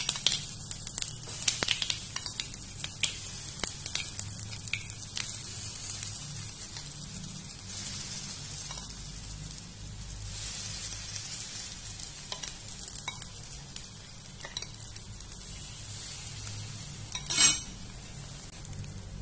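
Rava appe batter sizzling as it is spooned into the hot, oiled cups of an appe pan, where cumin and sesame seeds are frying. A spoon makes light clicks against the pan and bowl, with a louder clatter near the end.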